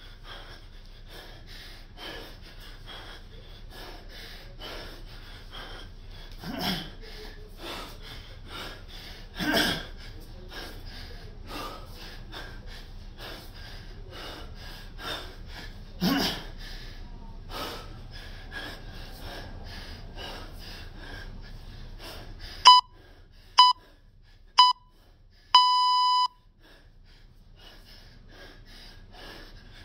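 Hard, fast breathing of a man deep into a set of kettlebell snatches: sharp exhalations about two a second, with a few louder gasps. Near the end, three short electronic beeps and then one longer beep cut through.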